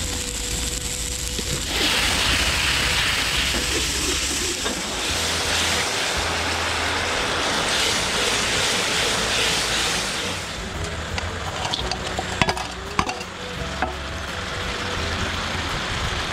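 Sauce sizzling and bubbling hard in a steel wok while a metal ladle stirs and scoops through it. About ten seconds in the sizzle eases, and a few sharp knocks of the ladle against the wok follow.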